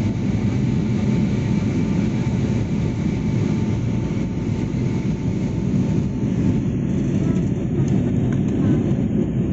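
Airliner cabin noise during the climb after takeoff: a steady low rumble of engines and rushing air. A faint thin whine fades out about four seconds in.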